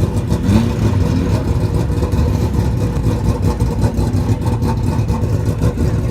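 Ligier JS P3 race car's Nissan 5.0-litre V8 running steadily with a deep, pulsing low rumble, not revving.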